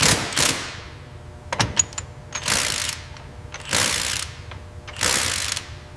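Assembly-line mechanical sounds: a few sharp clicks, then a series of short hissing bursts about a second and a quarter apart.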